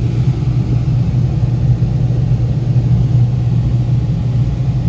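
Trane package air conditioner running with a steady, loud low hum.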